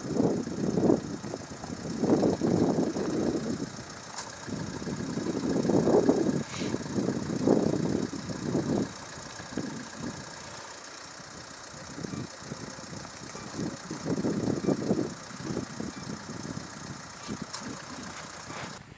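Mount Etna's lava fountains erupting: a deep rumbling that surges and fades every few seconds. It is loudest in the first half, eases off in the middle, and swells again near the end.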